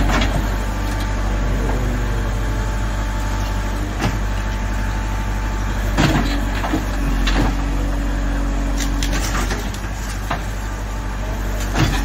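JCB 3CX backhoe loader's diesel engine running steadily while the backhoe arm digs, with several sharp metallic clanks from the bucket and boom.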